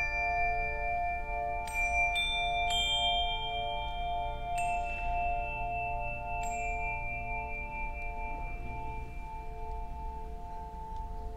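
Handbells ringing: a sustained low chord that pulses slowly and evenly, with higher bells rung one at a time over it, about five strikes in the first seven seconds. The chord then carries on alone, fading slightly.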